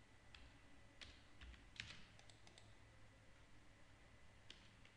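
Faint, scattered clicks of a computer mouse and keyboard as the copy command is worked, a few sharp clicks spaced irregularly over near-silent room hiss.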